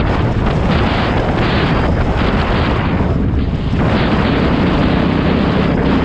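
Dirt bike engine running at riding speed, heard from the bike itself and mixed with heavy wind buffeting on the microphone. The throttle eases off briefly a little past the middle, then picks back up.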